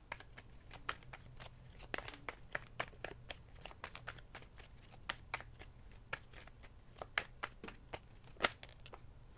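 Tarot cards being shuffled by hand: a run of soft, irregular card clicks over a faint low hum.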